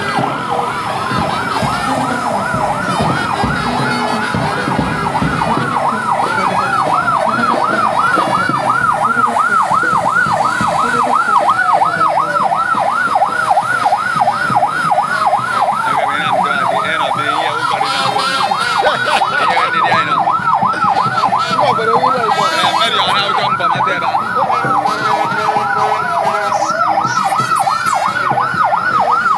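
Electronic siren sounding a rapid yelp, its pitch swinging up and down several times a second. Every few seconds a slower falling tone cuts across it.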